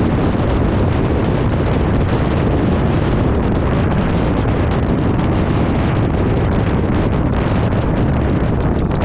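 JH Aircraft Corsair ultralight's engine and propeller running while taxiing, heard with heavy wind rush on a wing-mounted camera. A rapid, regular ticking comes through more clearly in the second half.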